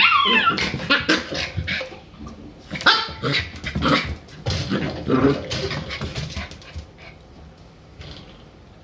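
Shiba Inu puppies play-fighting, giving high-pitched yips and barks. The yips are loud at the start and come again in a cluster of short bursts a few seconds in, then die down.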